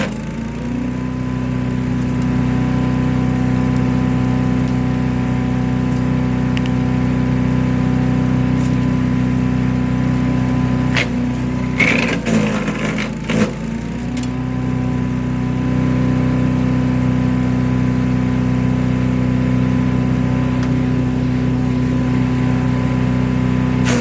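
Small gas engine of a chipper/shredder running steadily at full speed. About eleven seconds in, a burst of sharp cracks comes as material is chipped, and the engine's pitch sags under the load, then climbs back about three seconds later.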